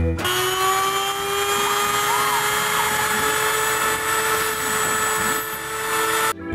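Rotary-tool spindle of a homemade CNC router running at high speed, its engraving bit milling the copper of a circuit board. It is a steady high whine whose pitch creeps slightly upward; it starts abruptly just after the opening and cuts off sharply shortly before the end.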